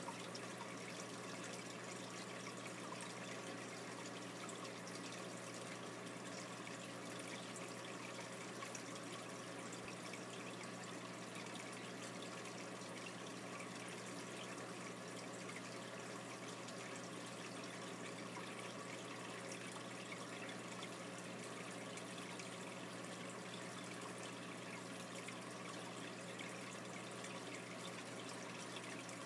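Water trickling steadily in a saltwater aquarium, over a steady low hum.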